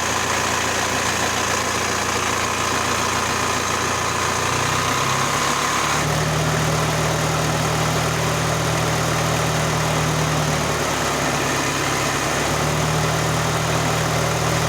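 VW engine coupled to a ZIL gearbox running steadily at idle, its note shifting about five to six seconds in as a high whine drops out. The setup has a knock that the owner cannot explain.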